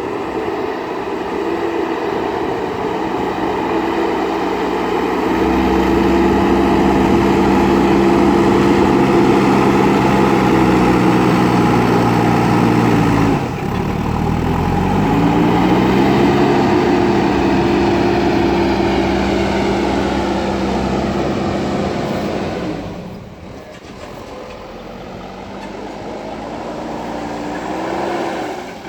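JCB backhoe loader's diesel engine running as the machine works. It revs up about five seconds in, its pitch dips sharply and climbs again near the middle, and it eases off to a lower level about three quarters of the way through.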